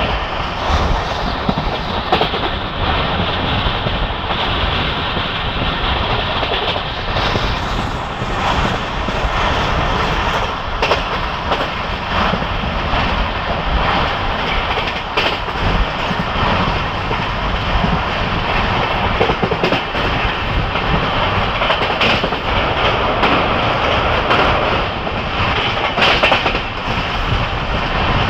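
A train running at speed, heard from aboard: a steady rumble with the wheels clacking over rail joints.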